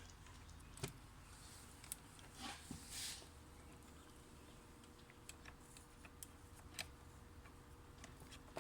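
Near silence: faint scattered clicks and soft rustles of handling over a faint steady hum.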